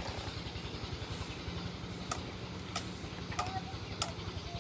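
A small engine running steadily with a fast low putter, and a sharp click about every two-thirds of a second in the second half.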